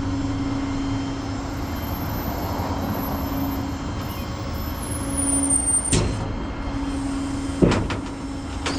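Tow truck engine running steadily, with two sharp knocks in the second half.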